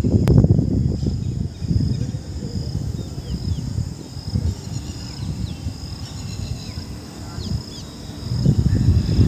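Wind buffeting the microphone in uneven gusts, over a steady high trilling of insects and a few short bird chirps.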